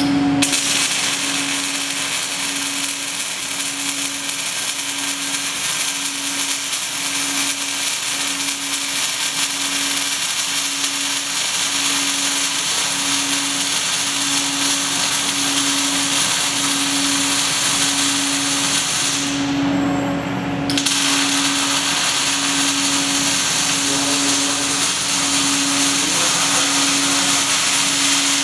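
Robotic MIG welding arc crackling and hissing steadily, with a low hum that pulses about once a second. The arc cuts out briefly about two-thirds of the way in, then strikes again, as the robot moves between welds.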